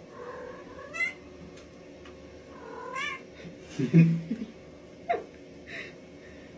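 Domestic cat meowing, short rising calls about one and three seconds in, then a louder low-pitched sound about four seconds in and a sharp click shortly after.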